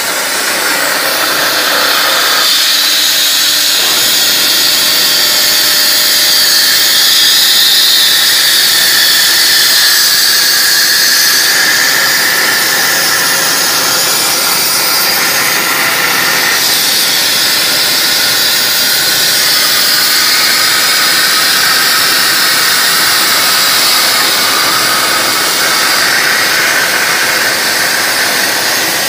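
Plasma torch of a CNC pipe profile cutting machine cutting through a square steel tube: a loud, steady, high-pitched hiss of the arc and its gas jet that carries on without a break.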